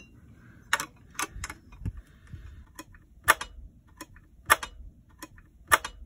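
Metal solar-panel pest-guard clips being handled and clipped onto the panel frame: about a dozen sharp metal clicks and clinks, irregularly spaced.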